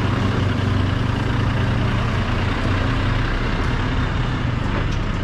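Heavy truck's diesel engine running steadily with a low drone as the truck and trailer manoeuvre to turn in.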